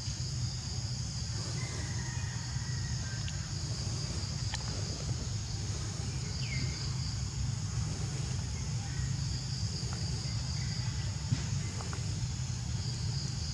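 A steady, high-pitched chorus of insects, with a low steady rumble underneath. There are a few faint clicks and one short chirp about six seconds in.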